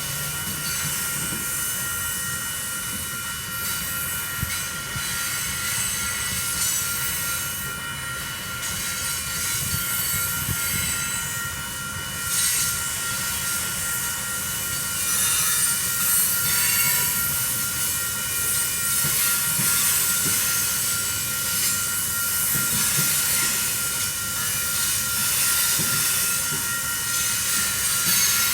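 Cars of a Union Pacific coal train rolling past, with wheels rumbling and clattering on the rails and a steady high squeal or ring over it. It grows a little louder about halfway through.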